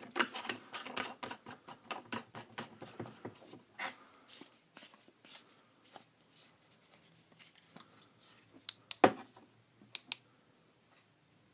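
Metal flashlight parts being handled and screwed together, giving rapid scratchy clicks for the first few seconds, then sparse faint rubbing, then two sharp clicks near the end.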